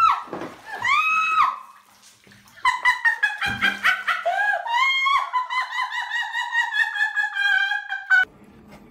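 A high cry that rises and falls, about a second in. It is followed by a fast run of short musical notes stepping downward, which stops abruptly near the end.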